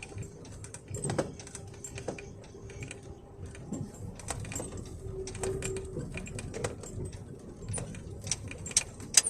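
Cab of a truck creaking and squeaking on a rough road: irregular clicks and creaks with a brief squeak about five seconds in.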